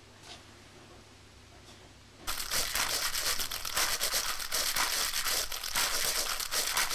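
A couple of seconds of faint room tone, then a dense crackling, crinkling noise starts abruptly and carries on steadily.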